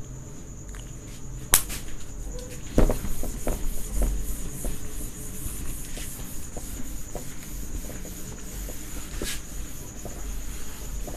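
Green cloth rubbing across a whiteboard in repeated swipes, wiping off marker writing. A sharp click comes about one and a half seconds in, and a couple of knocks follow.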